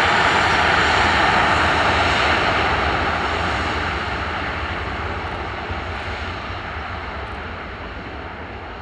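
Boeing 737-800's twin CFM56-7B turbofan engines at takeoff thrust as the jet rolls past on its takeoff run: a loud roar with a steady whine in it, fading gradually from about three seconds in as the aircraft moves away.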